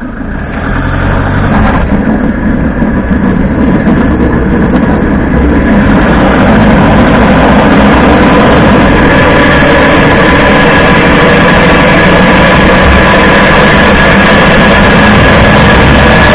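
Toyota HiAce 200-series van driving: tyre road noise and drivetrain noise build over the first six seconds or so, then hold steady and loud, with a few steady thin tones running through it. The owner hears a rattling from the differential in this noise; the hub bearings have already been replaced.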